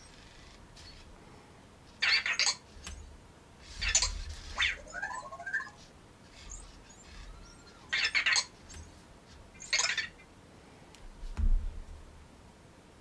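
Anki Vector robot's small motors sounding in about six short bursts of half a second or so, with a quick run of rising and falling electronic chirps from its speaker about five seconds in.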